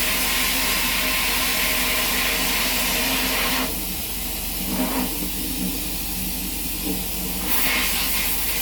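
Sandblast cabinet nozzle blasting abrasive at glass with a steady hiss, over a steady low hum. About three and a half seconds in the hiss drops back, spurts briefly about a second later, and comes back full near the end as the blast is worked with a foot pedal.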